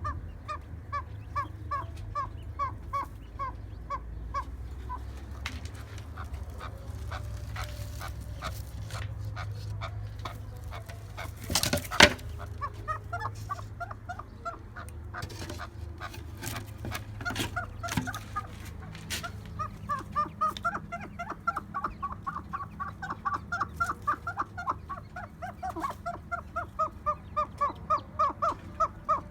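Pet birds calling: runs of quick repeated calls, about three a second, in the first few seconds and again over the last ten seconds, with a single sharp knock about twelve seconds in.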